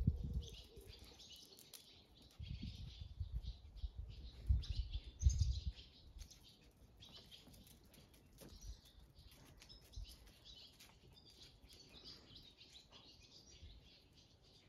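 Small songbirds chirping and twittering in the background, with a few bursts of low rumble in the first half.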